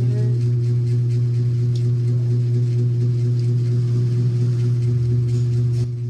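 A steady low hum with a few even overtones above it, dropping a little in level near the end.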